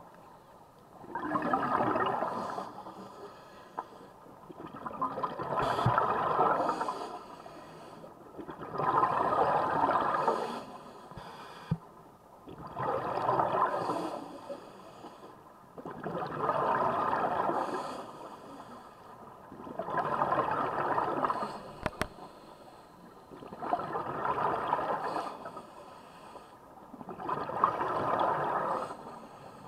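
Scuba diver's regulator breathing underwater: a rushing gurgle of exhaled bubbles about every four seconds, eight exhalations in all, each lasting a second or two.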